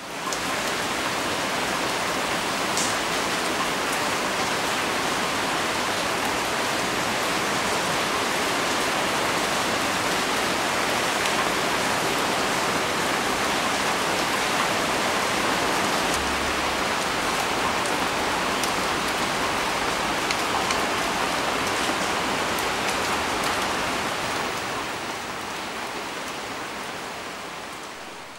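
Heavy rain falling steadily, with a few sharp drip ticks in it; it fades away over the last few seconds.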